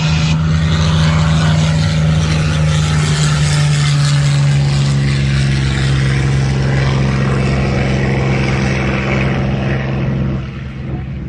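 Single-engine Second World War fighter taking off, its piston engine running at full power with a deep steady drone. The pitch drops slightly as it passes and climbs away, and it fades near the end.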